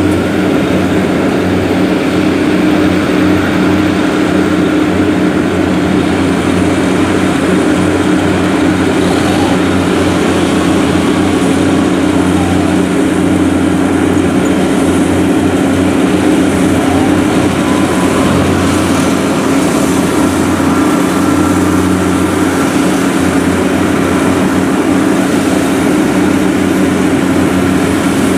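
Rice combine harvester engines running steadily under load, a constant low drone that holds the same pitch throughout.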